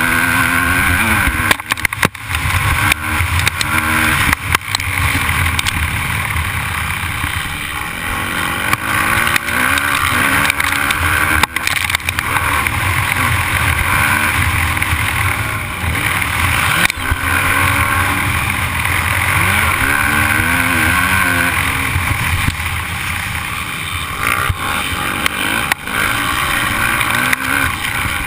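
The rider's own 250-class motocross dirt bike engine heard onboard, revving up and dropping back again and again as the throttle is worked and gears change, with sharp knocks from the bike hitting bumps.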